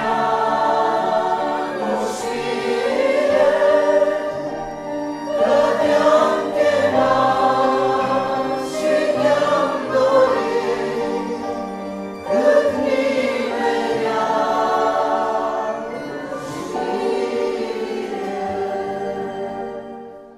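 A mixed group of young men and women singing a Romanian Christian hymn together, in phrases of a few seconds each, accompanied by cello, violin, acoustic guitar and keyboard. The song dies away at the very end.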